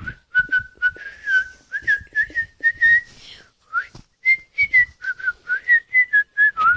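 A person whistling a tune loudly through the lips: a string of short notes that wander up and down in pitch, with a brief break about halfway through.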